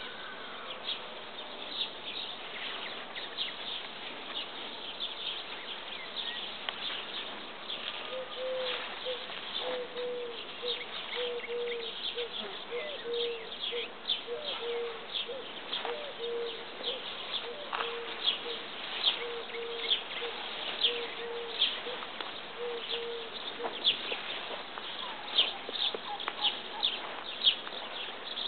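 Outdoor ambience of birds chirping in many short high calls, with an insect buzzing close by in short spells for a stretch in the middle.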